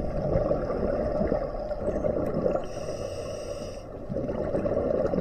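Muffled underwater noise with bubbling, typical of a scuba dive recorded through an action camera's housing. A brief higher hiss lasts about a second, a little past the middle.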